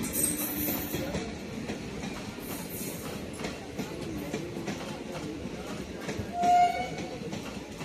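Passenger train rolling into a station behind a WAP-4 electric locomotive, its coach wheels clicking over the rail joints. A short horn blast sounds about six and a half seconds in.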